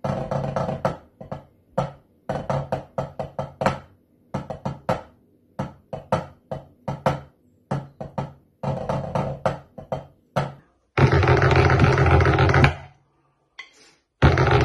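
Drumsticks playing on a drum practice pad: groups of quick strokes and short rolls separated by brief gaps. About eleven seconds in, a louder continuous sound with a steady pitch takes over, stops, and starts again near the end.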